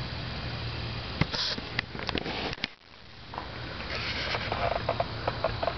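Handling noise on a camcorder's built-in microphone: rubbing and scattered sharp clicks and knocks over a steady low hum. The sound drops out briefly about three seconds in, then returns with more rustling and a quick run of clicks near the end.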